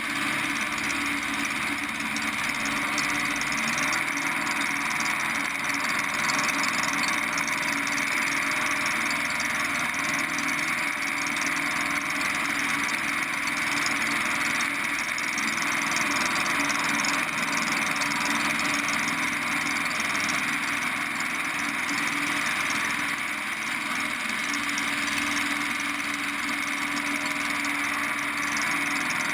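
Preceptor Ultra Pup light aircraft's engine and propeller running steadily in cruising flight, heard from a camera mounted outside under the wing with air rushing past.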